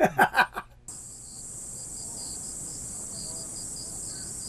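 An elderly man laughs heartily for under a second. Then, after a sudden change, insects chirr steadily: a high, even trill with a pulsing chirp underneath.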